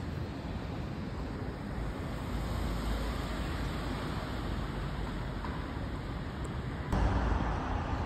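Street traffic noise: a steady hum of cars on a city road, with a low rumble of wind on the microphone. The noise suddenly gets louder near the end.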